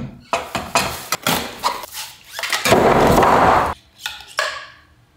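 Parts of a gaming chair being handled: hard plastic and metal pieces knock and clatter against each other and the table during the first two seconds, then a loud rustling rush of about a second, likely the plastic wrapping being pulled.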